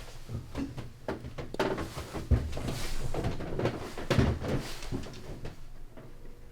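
Schnauzer puppy investigating the camera up close: irregular bumps and knocks right at the microphone, with two short bursts of airy snuffling noise about two and a half seconds and four seconds in.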